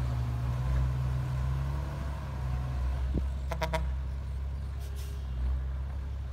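Heavy diesel engine of a Hyundai dump truck running with a steady low drone as the truck creeps forward over loose dirt. A quick run of short high chirps comes about three and a half seconds in.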